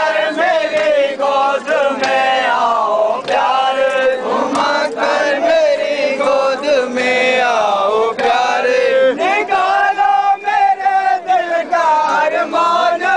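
A crowd of men chanting together in a Shia mourning (matam) chant, long held, sliding voiced lines sung in unison, with scattered sharp knocks through it.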